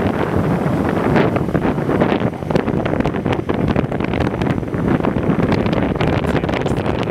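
Heavy wind buffeting the microphone of a camera moving at speed along a road, with vehicle and road noise underneath; it flutters and gusts unevenly throughout.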